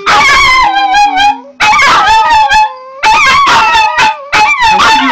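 Small dog howling: a run of long, wavering howls with short breaks about a second and a half in and again near three seconds.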